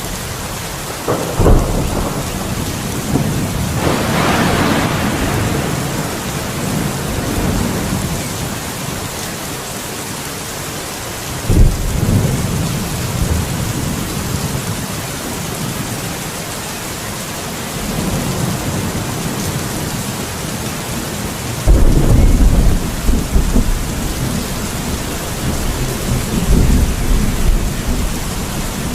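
Steady rain with thunder: a sharp clap about a second and a half in, another about twelve seconds in, and a long, loud rumbling from about twenty-two seconds on.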